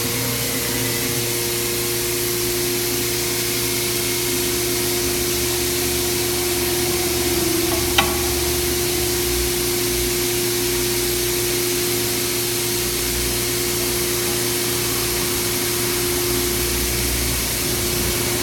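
Steady machine whir with a steady hum, at an even level, with one sharp click about eight seconds in.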